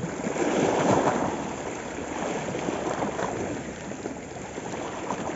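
Small sea waves washing against and over a shoreline rock, a swell of splashing surf loudest about a second in and a smaller one around three seconds.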